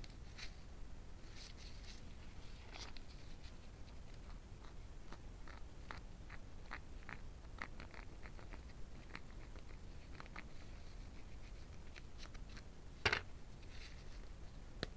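Roasted multani mitti (fuller's earth clay) being bitten and chewed: scattered small crisp crunches and crackles, with one louder crack near the end.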